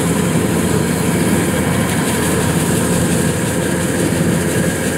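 Kubota DC-115 Plus rice combine harvester running steadily under load, its engine hum mixed with the clatter and rush of the cutter and threshing drum as it harvests flattened, lodged rice.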